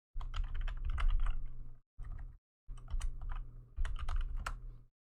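Typing on a computer keyboard: quick runs of keystrokes in several spells with short pauses between, over a low steady hum.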